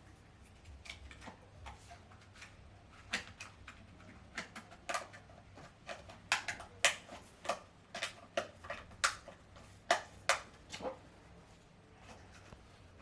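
A series of irregular sharp clicks and light taps, densest in the middle, as of hard parts being handled and fitted.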